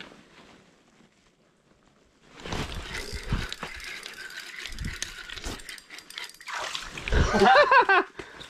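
Rustling and scattered knocks of someone moving about and handling gear in an ice-fishing shack, starting after about two seconds of near silence. Near the end comes a short, louder wavering pitched sound that bends up and down.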